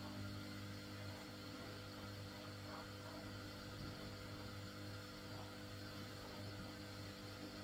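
Steady low electrical hum over a faint hiss, with a few faint light knocks, as of a wooden spoon stirring in a saucepan.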